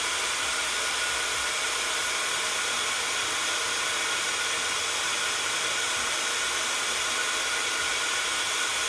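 Embossing heat gun blowing steadily, melting embossing powder on stamped cardstock, a constant hiss with a faint whine.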